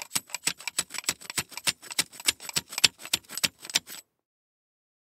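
Ramrod of a Springfield Model 1842 musket worked up and down inside the barrel, packing the powder charge: quick metal-on-metal strikes, about three or four a second, with a bright ring. They stop abruptly about four seconds in.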